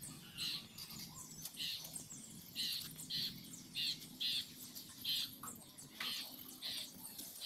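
A bird calling over and over: short, high chirps repeated about once or twice a second.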